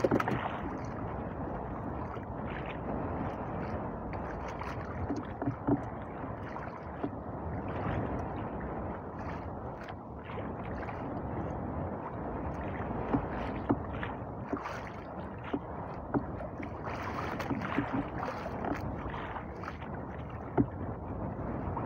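Sea water lapping and slapping against the hull of a small drifting fishing boat, with a steady rush of wind and a few short knocks against the boat.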